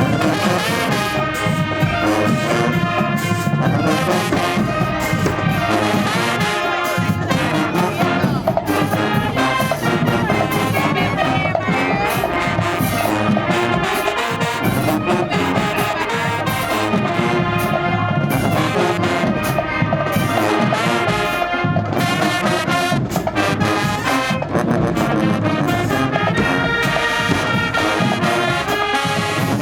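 High school marching band playing in the stands: brass section of trombones and trumpets with drums, loud and steady.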